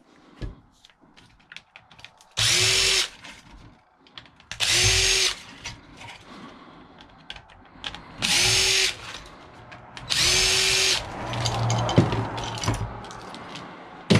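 Power drill running in four short bursts of about a second each, spinning up quickly at each start, while taking apart a scrapped appliance; small clicks and rattles of parts being handled in between.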